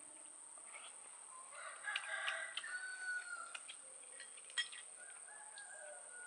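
A rooster crowing about one and a half seconds in, a call of about two seconds ending on a held note, with a fainter crow near the end. A sharp click about four and a half seconds in.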